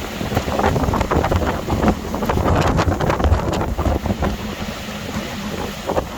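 Storm-force wind buffeting the microphone in uneven gusts, a loud low rumble with rapid irregular thuds.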